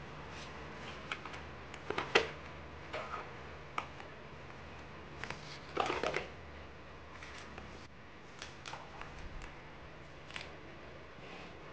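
Light clicks and rustles of paper cards and a small plastic drawer organizer being handled, with a short clatter about two seconds in and another about six seconds in.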